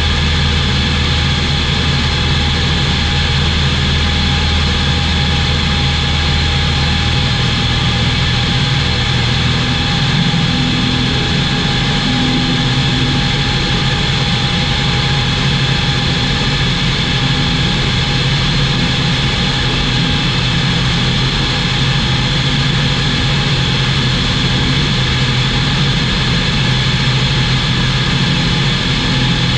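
CZAW SportCruiser light aircraft's Rotax 912 four-cylinder engine and propeller droning steadily in level cruise. A deep hum underneath drops away about seven seconds in.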